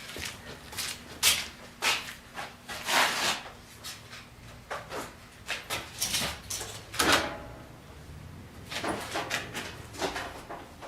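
Scattered clunks and rattles of hands working on a tractor, with no engine catching; its ignition is not working.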